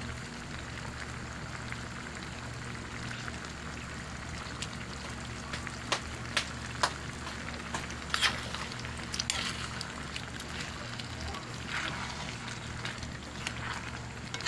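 Coconut cream and banana blossom cooking in a pan with a steady sizzle, while a spatula stirs the vegetables and knocks against the pan several times in the middle part. A low steady hum runs underneath.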